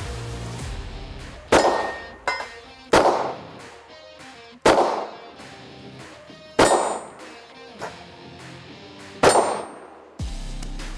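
Five shots from a Taurus 650 double-action revolver, spaced about one and a half to two and a half seconds apart. Each shot is followed by the clang of a steel target ringing out. Background music fades out early on and comes back near the end.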